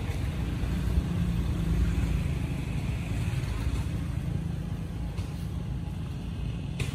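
A motor engine running steadily, heard as a low rumble with a faint hum, and one sharp click near the end.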